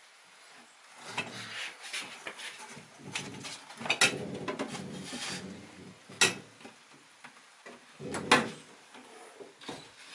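A wooden bed panel scraping and rubbing as it is lowered and shifted into place in the back of a small car, with three sharp knocks about four, six and eight seconds in as it bumps into position.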